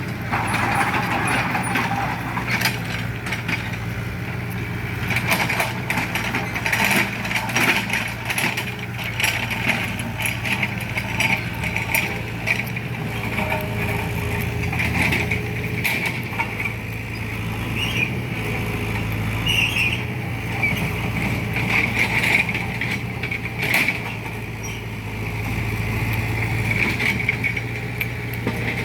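Engine of road-repair machinery running steadily, with many short clanks and knocks from the work.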